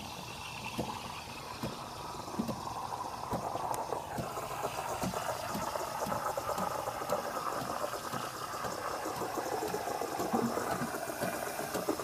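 Steam wand of a DeLonghi Magnifica S espresso machine frothing milk in a mug: a steady hiss with small recurring pops, its pitch falling slowly as the milk heats and foams.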